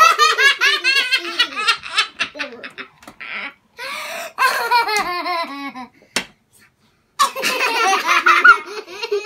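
Several young children laughing hard in repeated bursts, a toddler's laughter among them, breaking off for about a second around six seconds in.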